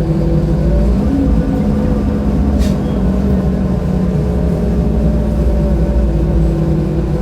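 Mercedes-Benz O-500U bus's OM-926LA inline-six turbo-diesel engine running steadily, its pitch drifting slightly up and down. A brief hiss cuts in about two and a half seconds in.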